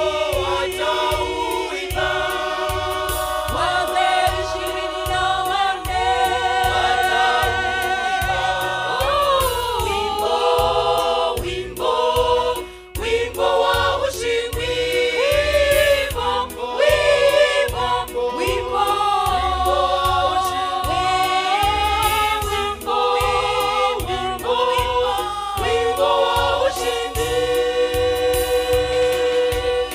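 Gospel choir of mixed voices singing into handheld microphones, led by solo voices, over a steady low beat.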